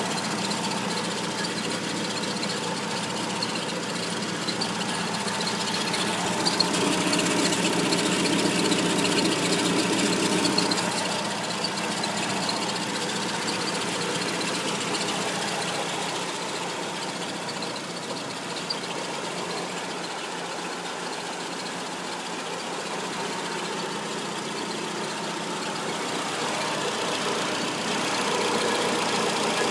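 Peugeot 206 engine running at idle, getting louder for a few seconds about a third of the way in, then settling back. It gets louder again near the end.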